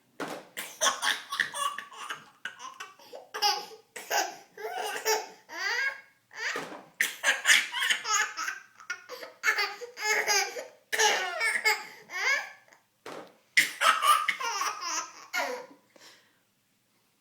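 An overtired toddler laughing hard in repeated high-pitched bursts of belly laughter, stopping shortly before the end.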